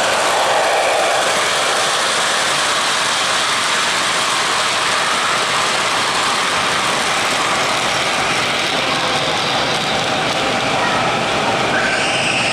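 O-gauge model train, a Weaver Chessie System GE U25B locomotive pulling loaded coal hoppers, running on the layout track: a steady rolling rumble and clatter of wheels on the rails with the motor running.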